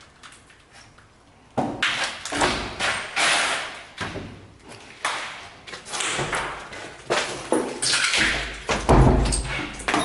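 Doors being pushed open, knocking and thumping, among a run of scraping and rustling noises that starts about a second and a half in; the loudest thud comes about nine seconds in.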